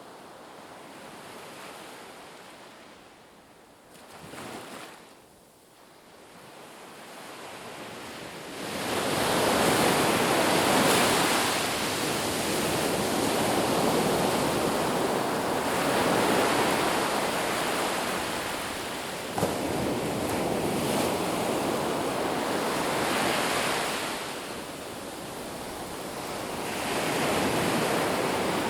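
Sea waves washing onto the shore. The surf is faint for the first several seconds, then breaks loudly about eight seconds in and keeps rising and falling in slow swells.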